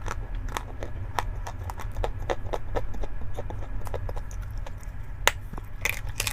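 Chalk being crunched close to the microphone: a rapid, irregular run of small crisp cracks, with one sharper snap about five seconds in. A steady low hum runs underneath.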